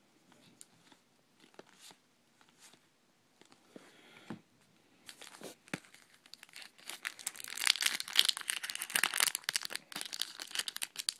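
A few faint clicks, then about five seconds in a trading-card pack wrapper starts being torn open and crinkled, getting denser and louder toward the end.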